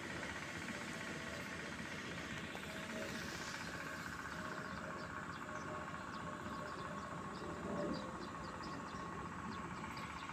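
Steady outdoor background noise: a low hum with a thin steady whine above it, and in the middle a run of quick, high chirps, about four a second.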